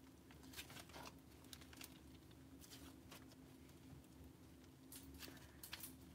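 Faint crackling and soft clicks from slime with clay mixed in as it is stretched and folded by hand. The clicks are scattered and cluster near the end, over a faint steady hum.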